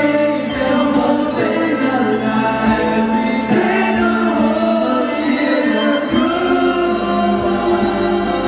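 A large choir of grade-school students singing a slow song together, the voices holding long notes.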